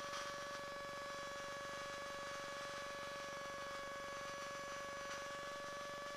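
Faint steady electrical whine, one tone with a few higher overtones, without the engine or wind noise.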